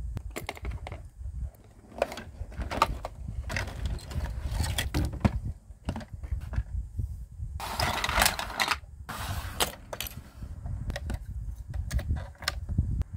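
Hands handling a small plastic Hello Kitty toy kitchen: scattered clicks and taps of hard plastic parts. A longer stretch of rustling comes about eight seconds in.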